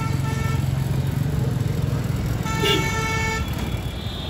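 Motorcycle engine running steadily in street traffic, heard from the pillion seat. A vehicle horn honks twice, each blast under a second: once at the start and again about two and a half seconds in.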